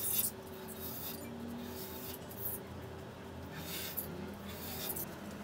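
A metal scraper blade scraping dried polyester putty (body filler) off the seams of a slate pool-table bed, in several short, separate strokes.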